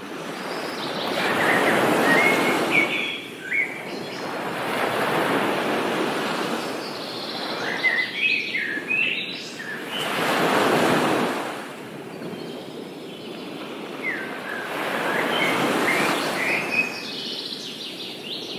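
Surf washing in slow surges that swell and fade every few seconds, with small birds chirping in three short bouts over it.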